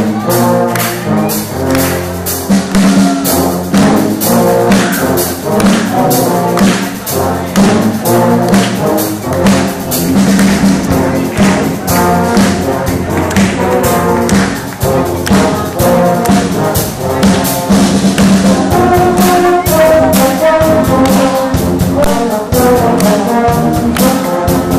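Brass ensemble of euphoniums and French horns playing a tune together, with sharp percussion hits keeping a steady beat.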